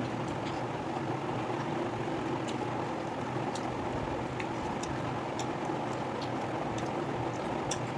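Steady background noise, with a few faint, short clicks scattered through it.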